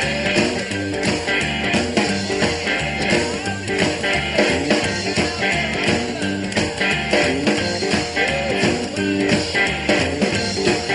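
Rock and roll song playing: a band passage without transcribed vocals, with guitar over a steady beat and bass.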